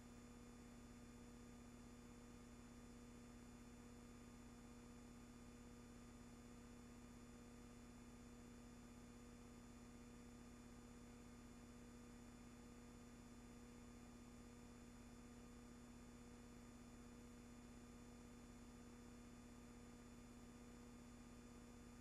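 Near silence: a faint, steady electrical hum and hiss.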